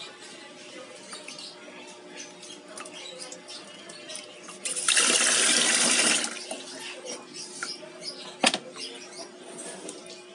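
Water running from a tap for about a second and a half, starting and stopping abruptly. Later a single sharp knock.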